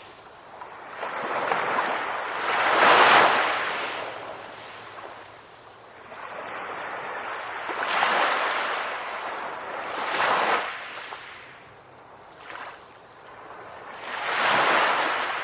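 Ocean surf breaking and washing up onto the shore in slow, rushing swells. The biggest surges come about three seconds in, around eight and ten seconds, and near the end, each followed by a softer wash.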